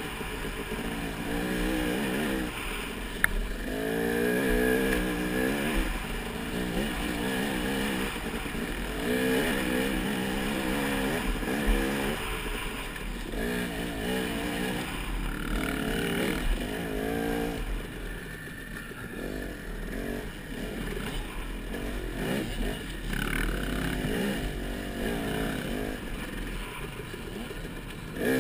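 Off-road motorcycle engine revving up and easing off again and again under racing, its pitch climbing and dropping every couple of seconds, with two sharp knocks.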